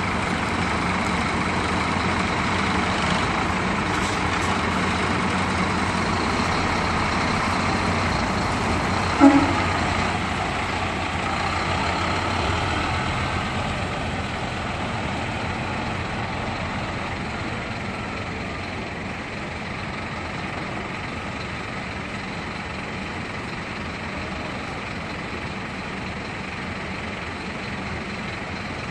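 Marcopolo coach's diesel engine running as the bus pulls slowly away, growing gradually fainter after about ten seconds. A brief loud burst stands out about nine seconds in.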